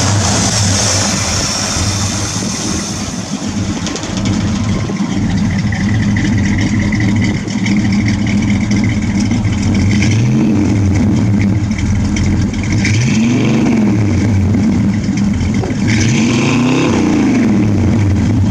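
Chevy 350 cubic-inch small-block V8 in a 1950 Chevrolet Fleetline idling through dual exhausts, with three short blips of the throttle where the engine note rises and falls, about ten, thirteen and seventeen seconds in.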